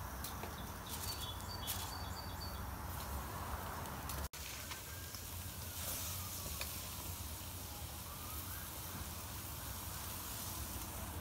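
Chicken thighs and fish fillets sizzling on an open gas grill, a steady hiss, with small birds chirping in the first couple of seconds.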